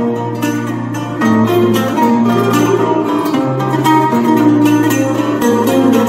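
Acoustic ensemble of a bowl-backed lute and several classical guitars playing an instrumental passage of traditional Cretan music, plucked melody notes over a bass line that moves about once a second.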